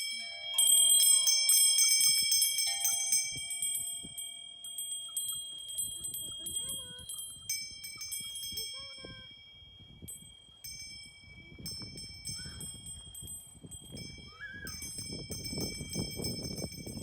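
Wind chimes ringing: many high, long-held tones struck irregularly, strongest in the first few seconds. A few short gliding calls come in the middle, and a rushing noise builds near the end.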